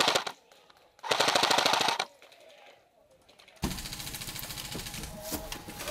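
Airsoft electric rifle firing on full auto: a burst that stops just after the start, then a second burst of about a second beginning about a second in. After a lull, a steady noise starts abruptly near the middle.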